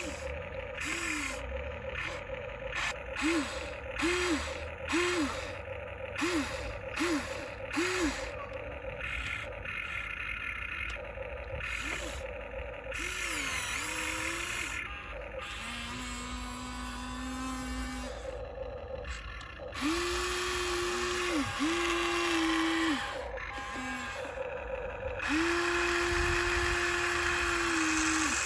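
Small electric gear motors of a Huina radio-controlled construction model whining in short bursts, each one rising and then falling as it spins up and stops, about eight times in quick succession. Later come a few longer, steady runs of a second or more, ending in a run of about three seconds.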